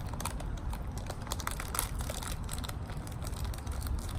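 Plastic snack wrapper of a butter coconut biscuit being torn open and handled, crinkling with irregular sharp clicks and crackles over a low steady background rumble.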